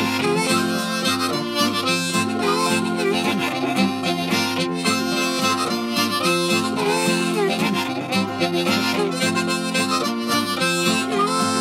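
Harmonica music: a harmonica playing a continuous tune, mixing chords and moving notes.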